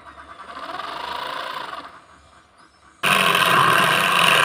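Homemade mini saw driven by a salvaged DC motor, running with its upright blade moving. It grows louder as the speed knob is turned up, then drops back. About three seconds in it becomes much louder and harsher as the blade cuts through a thin sheet.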